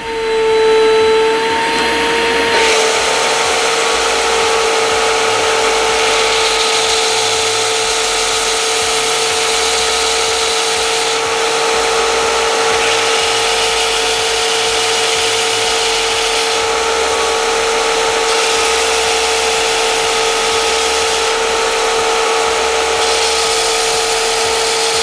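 SIP 01943 belt and disc sander's 1 hp motor starting up, with a steady whine that rises a little as it comes to speed. From about two and a half seconds in, a wooden block is sanded against the 6-inch belt, adding a loud, steady hiss of abrasive on wood.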